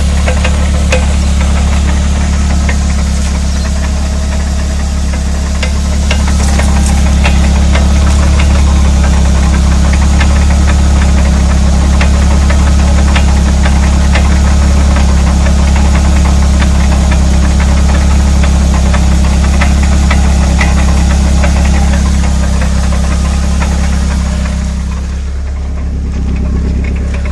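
A vehicle running with a steady low drone, over which comes a continuous scatter of light rattling clicks, the rattle the owner puts down to the rear wheel hub. The level dips briefly near the end.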